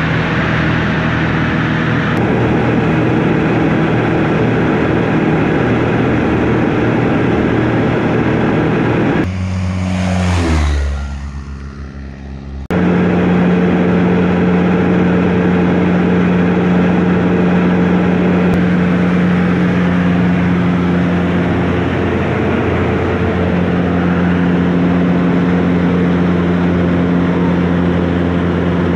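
Single-engine light aircraft's propeller engine heard from inside the cockpit as a loud, steady drone through a low flyby. About nine seconds in, the pitch slides down and the sound grows quieter for a few seconds, then cuts back in abruptly at full level.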